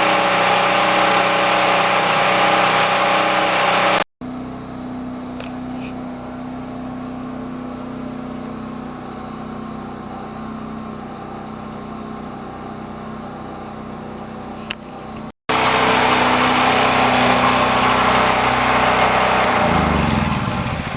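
DuroMax 5500E portable generator's engine running steadily with no load during break-in. The sound jumps abruptly twice, quieter in the middle stretch, and near the end the engine runs down, its pitch falling as it slows.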